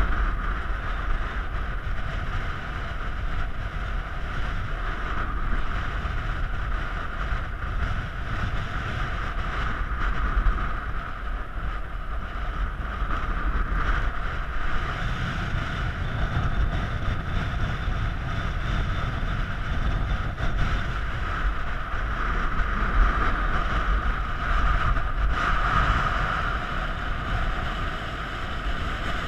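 Strong wind buffeting the microphone, a steady low rumble, with a fainter steady hum above it that swells and fades.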